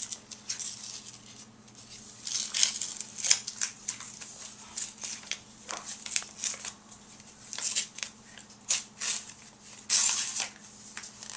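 Paper envelope being torn open and handled: an irregular series of short paper rips, rustles and crinkles.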